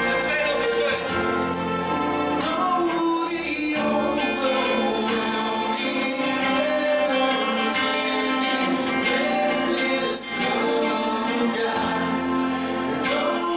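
Worship music: several voices singing a gospel-style song with instrumental accompaniment.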